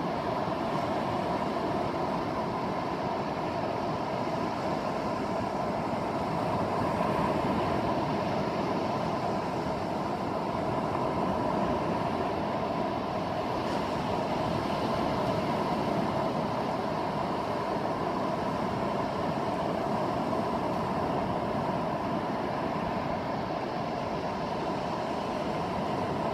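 Ocean surf washing onto the beach, a steady, even rushing noise with no breaks.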